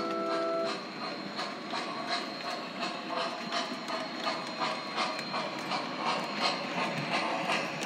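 A short musical chime ends just after the start. Then an O gauge model train runs along the track, its wheels clicking steadily over the rail joints, about two or three clicks a second, over a mechanical whir.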